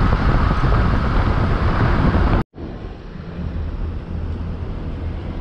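Motor scooter riding through a road tunnel: loud, even engine and rushing wind noise on the microphone, cut off abruptly about two and a half seconds in. After that, a quieter steady wind rumble on the microphone.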